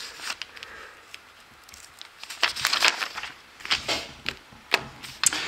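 Paper pages of a LEGO instruction booklet being turned: irregular rustling and crinkling with sharp clicks, densest about two and a half seconds in and again about four seconds in.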